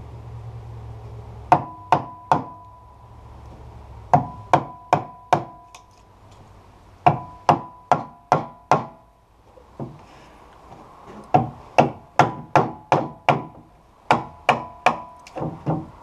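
Claw hammer striking a chisel to cut a notch in a wooden floorboard. The taps are sharp and come in runs of three to six, about two or three a second, each with a short metallic ring.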